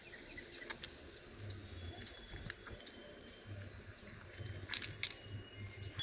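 Puppies suckling at their mother: faint wet smacking and chewing noises with scattered sharp clicks.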